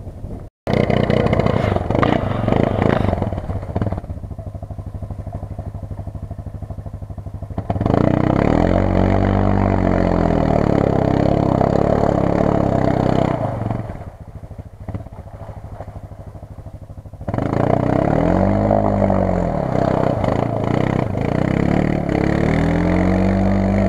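ATV (quad bike) engine revving up and down again and again as the quad works at the edge of the water against a muddy bank, with quieter spells between the bursts of throttle.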